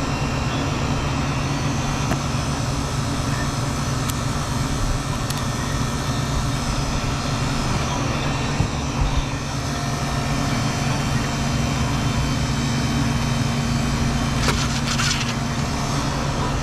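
Walk-in cooler's condensing unit running steadily, compressor and condenser fan with a low hum, as the system settles before its pressures are checked. A short rattle about 14 seconds in.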